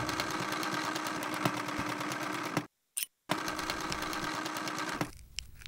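Sewing machine stitching at speed, a fast even clatter of needle strokes over its motor hum. It stops short about two and a half seconds in, starts again after a brief burst, and runs down near the end.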